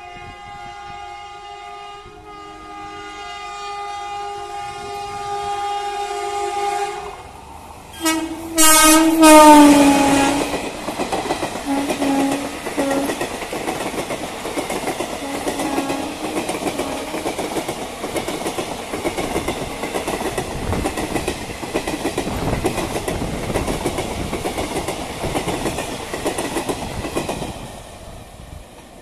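WAP7 electric locomotive hauling a train of ICF coaches passes at speed. A long horn blast grows louder for about seven seconds, then after a short break a second, loudest blast drops in pitch as the locomotive goes by. The coaches then rattle and clatter over the rail joints, fading near the end.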